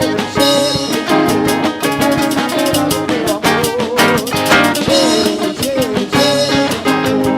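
Upbeat Latin-style band music with guitar, drum kit and shaker keeping a steady beat under a wavering melody line, with no singing.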